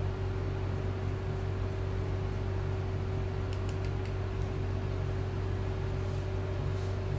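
Steady low electrical hum with a faint constant tone over room noise, and a few faint ticks around the middle; no programme sound plays.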